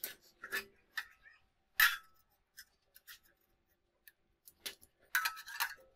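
Metal clicks and knocks as a homemade clamp and square steel tubes are handled and set on the bench: one sharp knock about two seconds in, then a quick run of clicks near the end.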